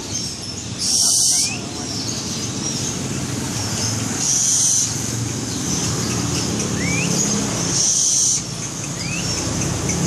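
Barn owl giving a harsh, hissing screech three times, each about half a second long and roughly three and a half seconds apart, over a low rumble of traffic.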